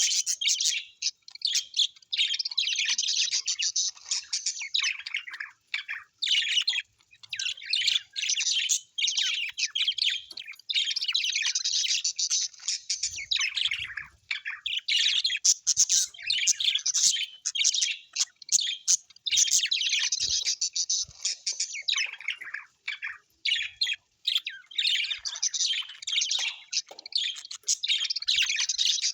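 Birds chirping and chattering in a dense, rapid stream of high-pitched calls, with a few brief pauses and the odd squawk.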